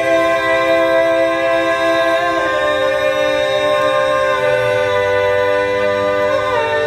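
Male voices singing a long-held, unaccompanied harmony chord. The chord shifts about two and a half seconds in and again near the end.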